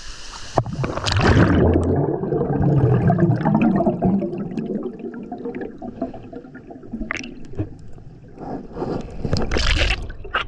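Lake water sloshing and gurgling close to the microphone, with scattered small clicks; strongest for the first few seconds and again near the end.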